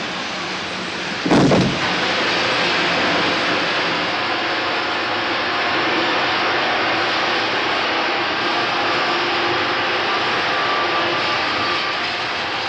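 Paris metro train running at speed through a tunnel: a steady, loud rush of wheels and air. A single loud bang about a second and a half in.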